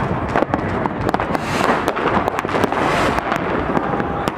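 Many fireworks and firecrackers going off at once: a continuous rattle of bangs and crackles, with sharp single cracks standing out over the steady din.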